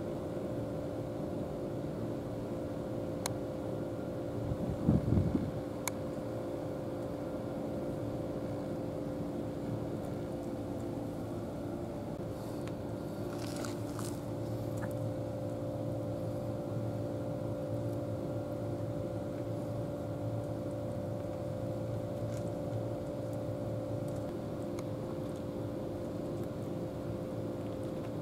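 Steady mechanical drone holding a couple of constant low tones throughout, with a brief loud low thump about five seconds in and a short hiss a little before the middle.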